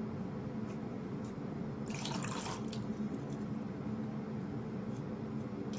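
Water being sucked up through a LifeStraw filter straw, with a short slurping gurgle about two seconds in, over a steady low hum.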